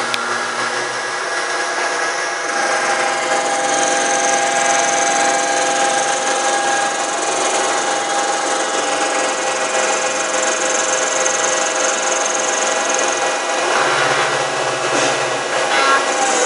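CNC lathe machining a part: its motors and the cut make a steady machine noise with several held tones, including a high whine.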